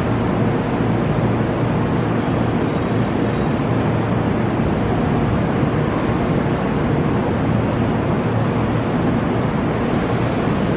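Steady low rumble and hiss of an electric commuter train standing at a station platform, its onboard equipment running while it waits.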